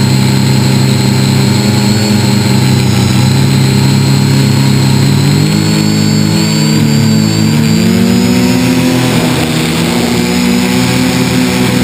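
Electric motors and propellers of an FPV model aircraft, heard from its onboard camera: a steady, loud hum with a thin high whine above it, whose pitch wavers and rises from about halfway through as the craft manoeuvres.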